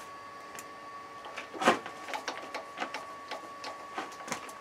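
Light clinks and knocks of small steel machine parts and tools being picked up and set down on a plywood board, scattered irregularly, the loudest a little under two seconds in. A faint steady high-pitched tone runs underneath.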